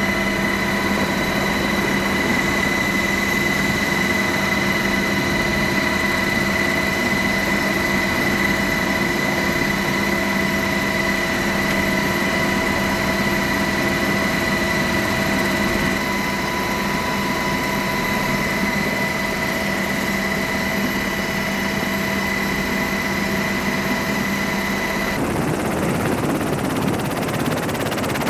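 Helicopter running with its engines and rotor turning, a steady high whine over a steady drone, heard at the open cabin door. About three seconds before the end the whine cuts off and a steady rushing noise remains.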